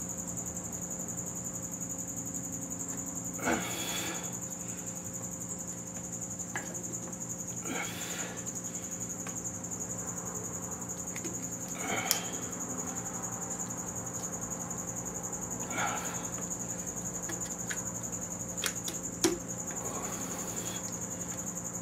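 Light metallic clicks and rustling from hands working a piston ring compressor around a piston, compressing its rings to fit the cylinder bore. The clicks come singly, several seconds apart, over a steady high-pitched tone and a low hum.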